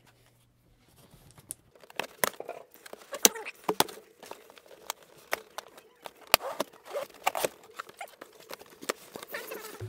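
Cardboard camera box being opened by hand: a string of sharp taps and clicks with scraping of cardboard, starting about a second in.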